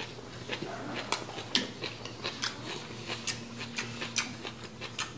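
A person chewing a mouthful of japchae sweet-potato glass noodles, rice and spam with the mouth closed: a run of irregular soft clicks, several a second.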